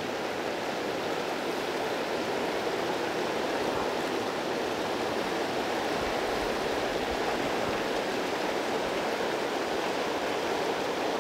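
Steady rush of a river flowing over stones.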